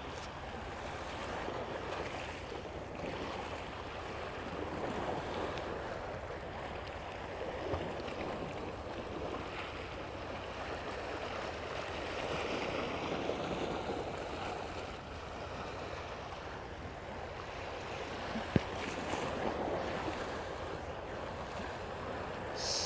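Sea waves washing against a rocky shore, a steady surf that swells and eases every few seconds. One short sharp click stands out near the end.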